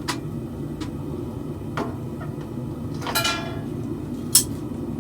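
Forge running with a steady rushing noise while blade steel heats, with a few light clicks, one ringing metallic clink about three seconds in, and a sharp click near the end.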